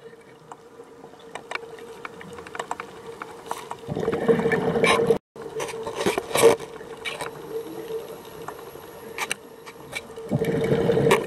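Underwater scuba breathing: two loud rushes of exhaled regulator bubbles, about four seconds in and near the end, over scattered clicks and crackles and a steady hum. The sound cuts out for a split second just after the first rush.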